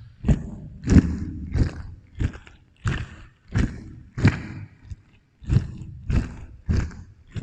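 Close-miked fruit being bitten and chewed, a wet crunch about every half second to two-thirds of a second, each one trailed by an added echo.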